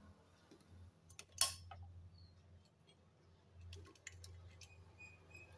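A few sharp clicks and knocks from a sewing machine and the fabric being set under its presser foot: a loud click about a second and a half in, then a few lighter clicks near the end, over a low steady hum.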